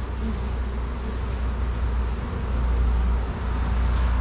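Asian honeybees buzzing around an open hive, as a dense mass of bees. Under it runs a steady low rumble.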